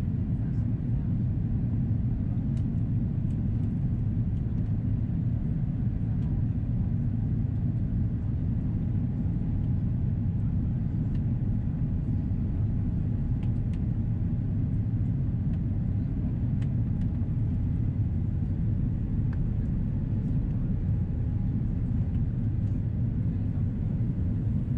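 Steady low rumble of the Airbus A330-343's engines and airflow, heard inside the cabin behind the wing on descent, with a faint higher hum through the middle.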